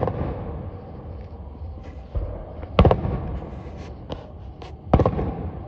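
Aerial firework shells going off: three loud booms about two seconds apart, with a few smaller, sharper cracks between them.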